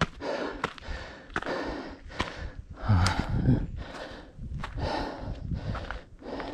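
A trail runner's heavy, close-up breathing, with footfalls on the trail striking between the breaths.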